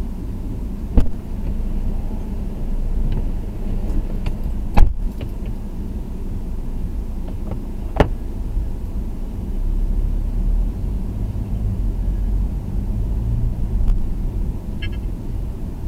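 Steady low road and engine rumble inside a moving taxi's cabin, with a few sharp knocks, the loudest about five seconds in.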